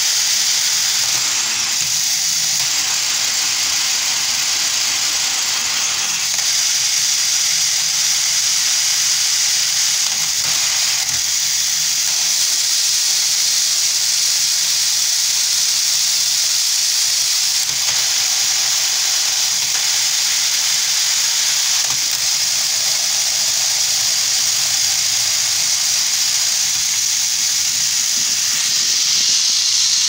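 Steady high hiss, with now and then a faint click from the plastic gears and joysticks of a hand-operated robotic arm kit being worked.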